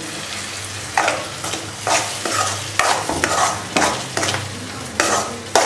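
Tomato purée sizzling in hot oil in a metal kadai as a metal ladle stirs it, the ladle scraping against the pan about once a second.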